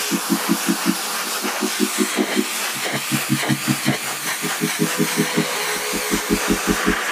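Ryobi pressure-washer spray hissing steadily on a muddy tire and wheel, under background music with a pulsing bass line in short repeated phrases; the bass drops deeper near the end.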